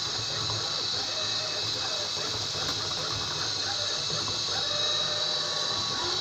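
Seebest C565 robot vacuum cleaner running: a steady whir of its suction fan and brushes with a high whine over a low hum.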